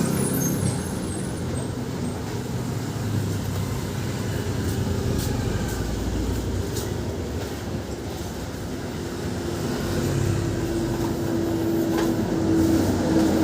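High-pressure washer running, a steady mechanical noise, with a steady hum tone coming in about two-thirds of the way through.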